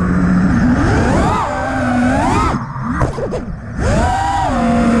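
A 5-inch FPV quadcopter's brushless motors and props whining as the throttle goes up and down, the pitch climbing and falling several times, with the throttle backed off for a moment about three seconds in, over a rush of wind on the onboard microphone.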